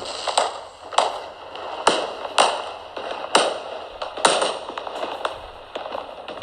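Fireworks sound effect: a string of sharp bangs at irregular intervals, roughly one or two a second, each trailing off briefly after the hit.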